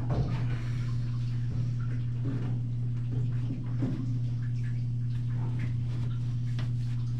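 Light scrapes and knocks of sheet-metal vent pipe being worked by hand into a joint, over a steady low hum.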